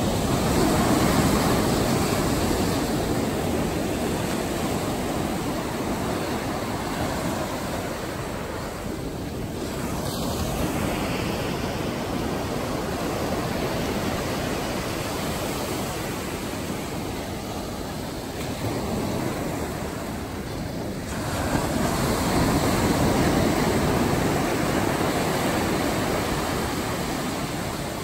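Atlantic surf washing onto a sandy beach: a continuous rush of breaking waves that swells and ebbs, loudest about a second in and again past the two-thirds mark.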